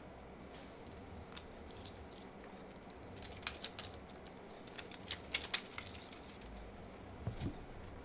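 Hands handling a mechanical keyboard on a desk mat: a few faint, scattered clicks and taps, bunched around the middle, then a soft low thump near the end as the keyboard is gripped and shifted.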